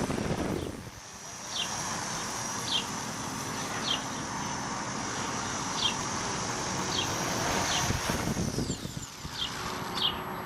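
Walkera 4#3B micro RC helicopter's motor and rotor whining steadily at a high pitch over gusty wind on the microphone. The whine drops in pitch near the end. Short high chirps recur about once a second.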